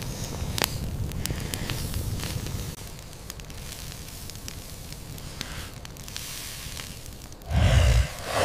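Campfire burning, with scattered sharp crackles and pops over a low rumble that eases off about a third of the way in. Near the end a brief, louder low whoosh.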